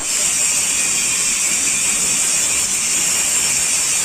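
Electric arc welding: a steady, high sizzling hiss from the welding arc.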